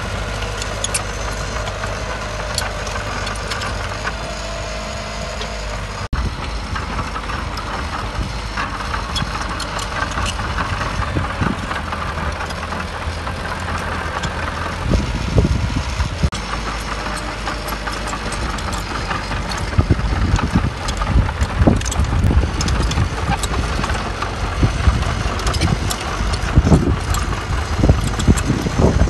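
Diesel engine of heavy earthmoving machinery running steadily. From about halfway in, irregular low thumps and knocks come over the engine sound and grow louder toward the end.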